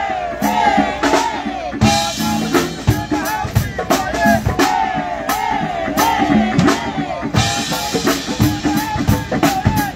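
Live band playing through a PA: a drum-kit beat with a wavering melody line over it and steady low bass notes underneath.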